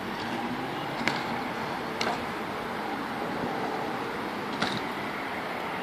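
Three sharp clacks of a kick scooter striking the concrete of a skatepark, about one, two and four and a half seconds in, over a steady rolling hiss.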